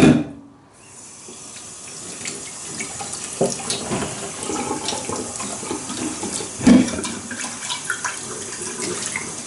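Water running steadily in a kitchen sink. It starts about a second in and grows slowly louder, with a few light knocks and a louder knock about seven seconds in.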